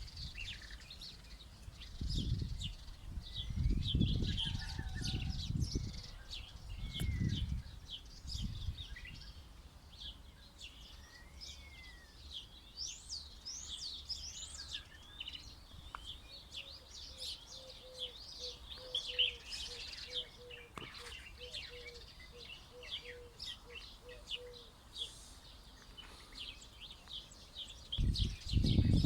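A chorus of small birds chirping and twittering, many quick high calls overlapping. Low rumbles come and go over the first nine seconds and again near the end. From about the middle a run of low, evenly repeated notes sounds about twice a second for several seconds.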